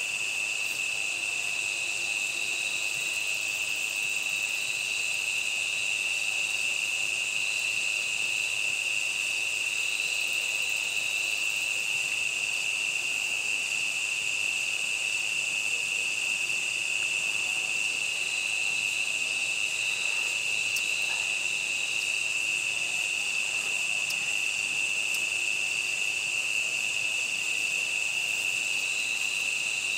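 Night insect chorus: a steady, continuous high-pitched shrill from many insects, with fainter layers at higher pitches.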